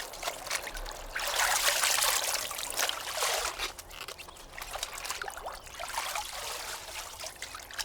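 Water trickling and splashing, louder for about two seconds starting a second in.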